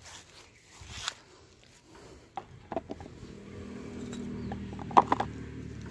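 Pieces of brick being set into the plastic bed of a toy dump truck: a few light knocks and scrapes, then a sharp clack about five seconds in. A low steady hum runs underneath in the second half.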